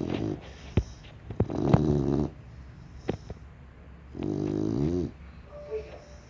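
Snoring in slow, regular breaths, one snore about every two and a half seconds, with a few sharp clicks between them.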